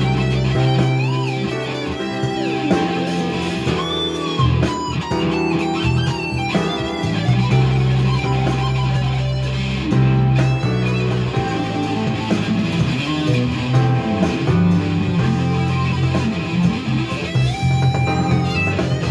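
Electric guitar played through a Friedman BE-OD distortion pedal, improvising lead lines in E minor with string bends, over a bass backing part.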